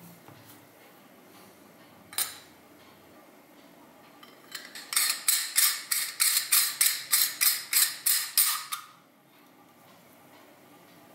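A sharp knock about two seconds in. Then a quick, even run of about fifteen metal scraping strokes, three or four a second, that stops after about four seconds, as rice-flour dough is packed into a metal string-hopper press with a spoon.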